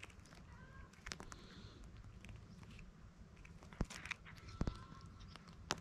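A cat chewing pieces of chocolate-coated biscuit, with a few sharp crunches, the loudest in the second half.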